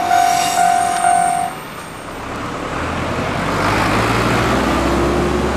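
Railway level-crossing alarm ringing at about two strokes a second, stopping about a second and a half in. A road vehicle's engine and traffic noise then build up.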